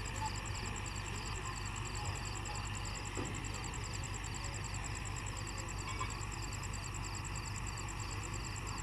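Night insects chirping in a fast, steady, even pulse over a constant low engine hum.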